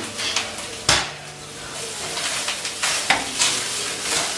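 Sausages frying in a pan, with a steady sizzle. A sharp knock about a second in, and another near three seconds in.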